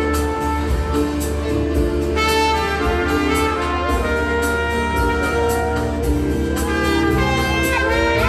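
Trumpet playing a jazzy tune over loud band music with a steady beat.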